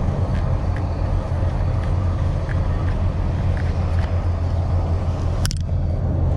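Steady low engine rumble, with one sharp crackle about five and a half seconds in.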